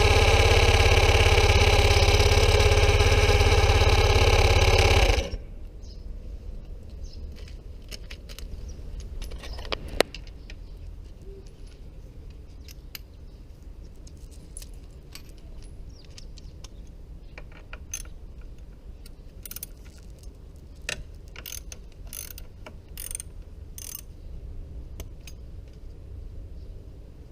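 Loud music for about five seconds that cuts off suddenly, followed by quiet scattered metallic clicks and clinks of tools and parts being handled while working on a scooter.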